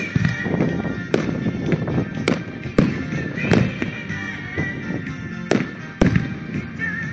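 Aerial firework shells bursting overhead: about seven sharp reports at uneven intervals, over the disco music that the display is fired to.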